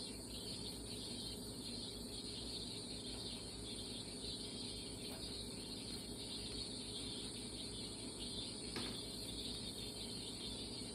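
Faint, steady sizzling of food frying in a pan, with a single light click about nine seconds in.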